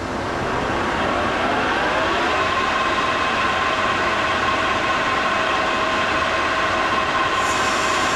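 American Pacemaker metal lathe spinning up to 1,000 RPM: a gear whine rises in pitch over the first two seconds, then holds steady. About seven seconds in, a higher hiss joins as the carbide insert starts cutting the steel bar.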